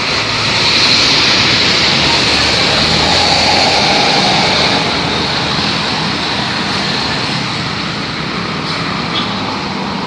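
A bus passing close by on the road. Its engine and tyre noise swells about half a second in and slowly fades away.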